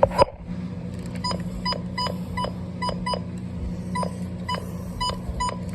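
Weather radio broadcast gap filled with short electronic beeps, irregularly spaced at about three a second, over a steady low hum. A sharp click at the very start is the loudest sound.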